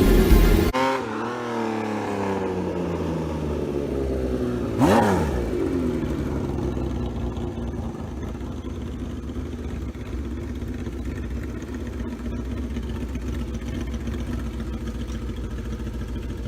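Kawasaki Z1300 inline-six engine and exhaust: the revs fall away after about a second, then the bike passes loudly about five seconds in, its pitch rising then dropping. A steady low engine note follows.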